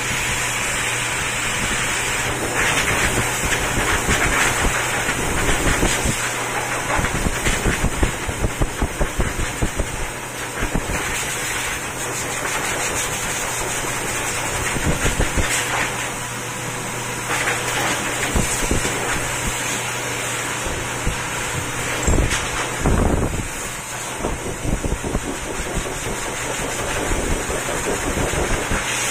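Hose-type pet grooming dryer blowing steadily while drying a wet cat's coat, the air stream gusting and buffeting irregularly as the nozzle is moved over the fur.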